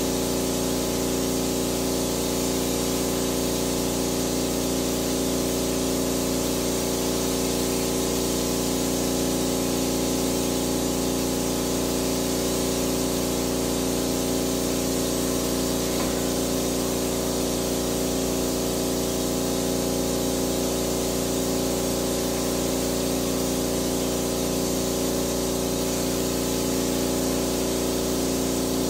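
Electric pesticide sprayer running steadily: its motor-driven pump hums without a break under a continuous hiss of spray from the wand.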